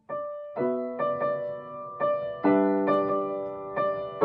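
Grand piano played solo, a pop-song arrangement with chords and melody notes struck about twice a second, each ringing and dying away. It begins right after a brief gap in the sound.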